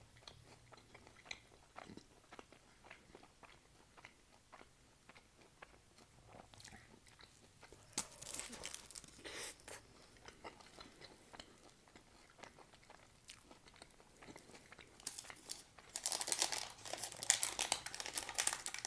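Close-up chewing of a shawarma, with soft wet clicks and crunches of the bite being chewed. Near the end the paper wrapper crinkles loudly as it is pulled and torn back.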